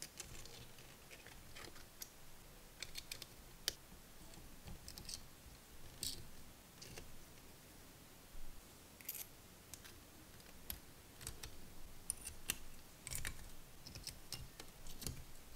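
Irregular faint clicks, taps and short scrapes of small metal parts being handled as a miniature all-metal four-cylinder model engine is assembled: a manifold being fitted to the cylinder head and tiny screws turned with a hex key.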